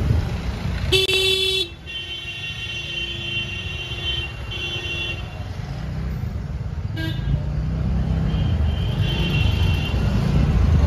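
Car horns honking in jammed traffic: a loud short honk about a second in, a longer honk right after it with a brief break, a short toot around seven seconds, and a fainter horn near the end, over a low rumble of engines and road noise.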